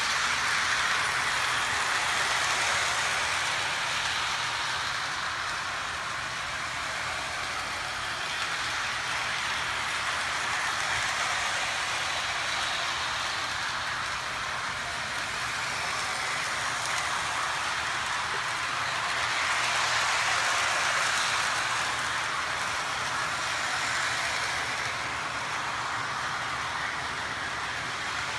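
Lionel New York Central model train set running on its track: a steady rolling hiss and rumble of wheels and motor, swelling as the train passes close, about two seconds in and again about twenty seconds in.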